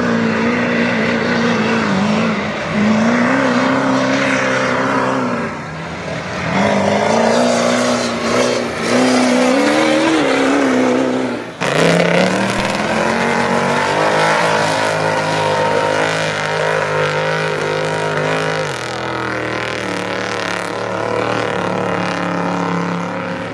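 Lifted mud truck engines revving hard under load while churning through deep mud, the pitch rising and falling every couple of seconds. A sudden cut about halfway switches to another truck's engine running at a steadier, lower pitch.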